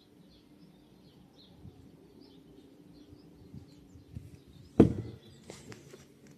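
Birds chirping faintly over a low steady hum. About five seconds in comes a sudden loud thump, followed by a second of rattling and crackling.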